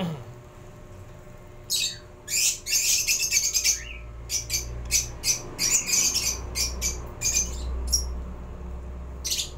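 A lovebird chirping in a rapid string of short, high-pitched chirps through the middle few seconds, with one more chirp near the end, over a low rumble.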